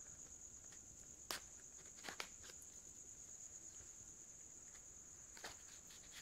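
Near silence, with a few faint clicks as a small paring knife slits the seal on a cardboard box. A faint steady high-pitched whine runs underneath.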